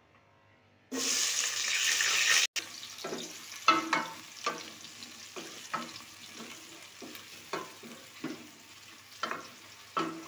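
Sliced onions dropped into hot oil in an aluminium pot: a loud sizzle starts about a second in, then settles into a steady frying hiss. A wooden spoon stirring the onions knocks and scrapes against the pot again and again.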